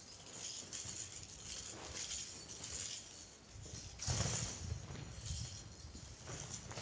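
Steel links of a nine-section chain whip jingling and rattling in repeated swishes as it is swung around the body. There is a louder burst about four seconds in.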